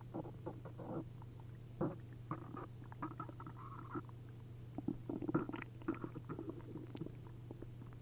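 Stomach and intestines gurgling and bubbling as liquid moves through the gut, in irregular bursts of quick pops and squelches. This is an upset stomach after a liter of milk and a liter of prune juice.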